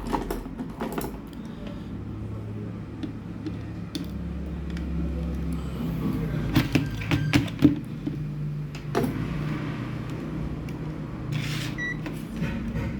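Scattered clicks and taps of small tools being handled on a workbench over a steady low hum, with a short high beep near the end.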